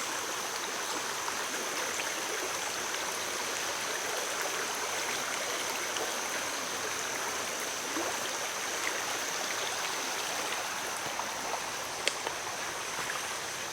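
Stream water running steadily, an even rushing wash, with a faint steady high-pitched tone above it and a single small tick near the end.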